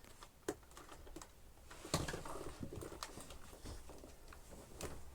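Light clicks and taps from handling the plastic tools and parts of a Dyson Ball upright vacuum, a few separate knocks with the sharpest about two seconds in. The vacuum's motor is not running.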